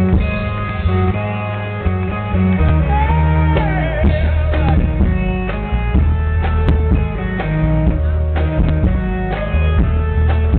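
Live rock band playing an instrumental stretch between sung lines: electric guitar over a steady bass line and drums, with a keyboard in the band.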